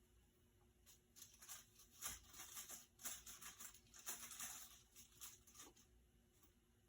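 Faint rustling and scratching in short, irregular bursts over several seconds.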